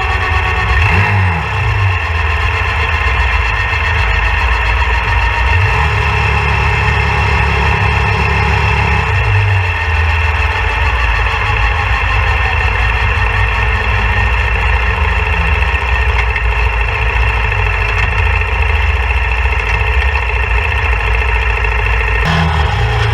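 RX3 Cyclone motorcycle being ridden: the engine runs low and its pitch rises and falls a few times, under a steady high whine from the front wheel. The owner suspects the whine is the brake pads rubbing the rotor or a wheel bearing.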